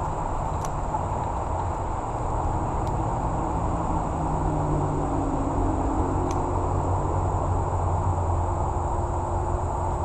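Steady traffic rumble from a nearby interstate, with a heavier vehicle's drone swelling from a few seconds in, over a constant high insect buzz.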